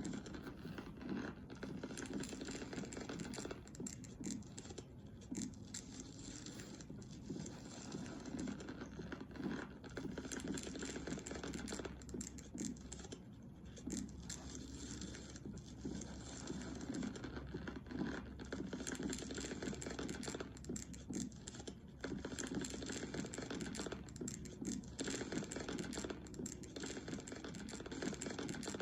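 Muscle-growth sound effect: a continuous run of irregular scratching and scraping noises.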